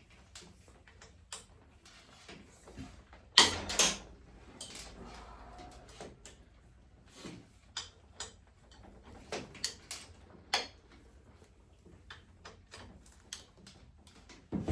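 Scattered clicks, clinks and knocks of hand tools and metal engine parts being handled while the cylinder head comes off a V-twin motorcycle engine, with the loudest pair of knocks about three and a half seconds in.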